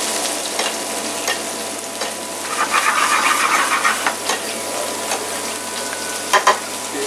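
Pollock fillet frying in foaming butter in a non-stick pan, sizzling steadily as a metal spoon bastes it. The sizzle swells for a second or so midway, and the spoon clicks lightly against the pan a few times, twice in quick succession near the end.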